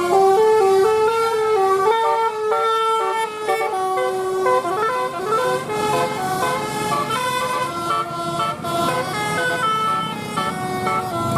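Bus telolet 'basuri' musical horn playing a tune, its notes stepping up and down in pitch in quick succession with several horn tones sounding together.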